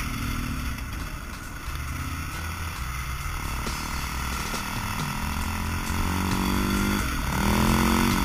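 Dirt bike engine running under throttle, its revs climbing in the last few seconds as it accelerates, with background music.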